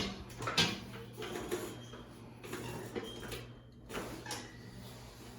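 Sharp clicks and knocks from a chiropractic adjustment: joint cracks and the adjusting table, the loudest about half a second in, then a few weaker ones, with rustling movement over a steady low hum.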